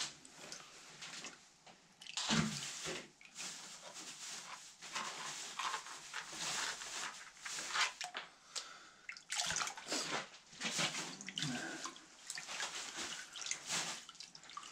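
Plastic gold pan being dipped and swirled in a tub of water while panning paydirt: water sloshing in the pan and pouring off its lip in irregular splashes.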